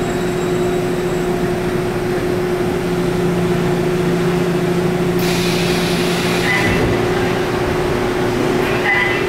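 Seoul Subway Line 5 train heard from inside the car while running between stations: a steady hum with rolling noise, and a rush of hiss lasting a couple of seconds about five seconds in.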